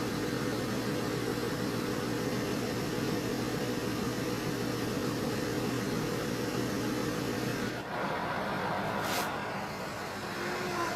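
A steady motor hum with a constant drone, like a vehicle running. It changes abruptly about eight seconds in, followed by a brief hiss.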